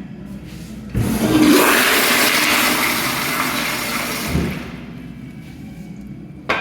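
Commercial restroom toilet flushing: a sudden loud rush of water starts about a second in, runs for about three and a half seconds, then tapers off. A short sharp knock sounds near the end.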